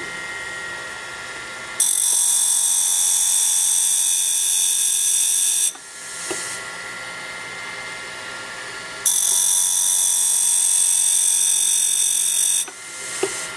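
Grinding wheel motor running steadily on a homemade end mill sharpening fixture, with two grinding passes of about four seconds each as the end mill's flute is fed across the wheel. Each pass is a loud, high-pitched grinding hiss that starts and stops abruptly.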